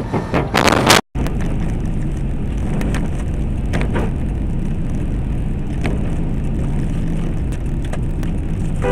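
Steady low rumble of a car driving, picked up by a dashcam inside the cabin. It comes after a short, loud rush of noise that cuts off abruptly about a second in.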